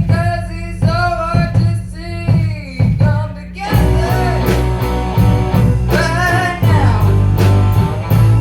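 Live rock band playing a song: a lead singer over drums, bass guitar, guitar and piano, with steady drum hits and a strong bass line.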